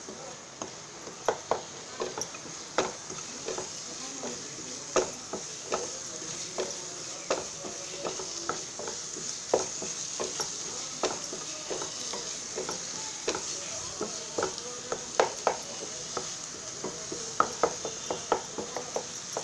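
Spiced onion-tomato-coconut masala paste frying in oil in a nonstick pan, with a steady sizzle. A spatula stirs it, scraping and tapping against the pan at irregular intervals.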